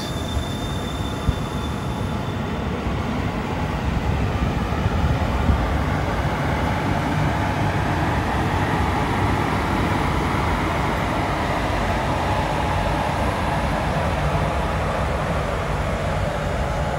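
An Indian Railways WAP-4 electric locomotive and its passenger coaches rolling past close by along a station platform: a steady rumble of wheels on rail that grows a little louder after a few seconds.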